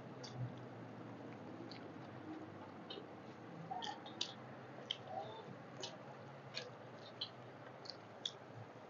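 Two people eating rice and curry by hand: quiet chewing and moist mouth sounds, with scattered faint, sharp clicks and smacks at irregular intervals.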